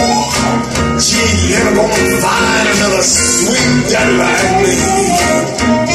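A recorded song with a singing voice over a band, played loudly through hi-fi loudspeakers driven by a single-ended tube amplifier and heard in the listening room through a phone's microphone.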